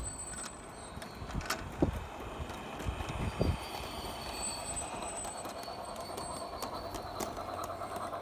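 Large-scale model train running on garden track: a steady whir from the drive with a few sharp clicks of wheels over the rail joints.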